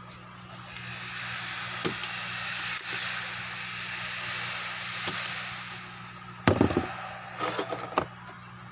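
Soldering iron sizzling and crackling on solder and flux for about five seconds while a transistor leg is desoldered from a speaker amplifier board. This is followed by a sharp snap with a thump and a few small clicks.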